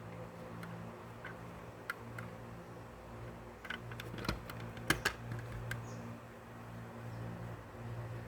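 Scattered light clicks and taps from handling a diecast model car and its plastic packaging, bunched about four to six seconds in, over a steady low hum.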